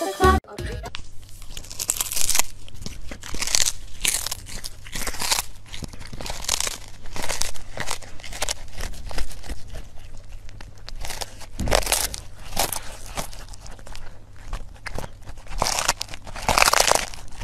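A cat chewing and crunching a small fish: irregular crunches and tearing bites follow one after another, over a low steady hum.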